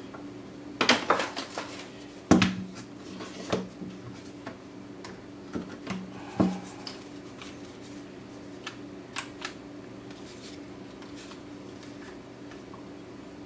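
Bar clamp being worked and tested under pressure on its repaired head: a quick run of ratchet clicks about a second in, a sharp knock about two seconds in and a few more knocks, then scattered lighter clicks. It is the test of the new red oak end, which holds.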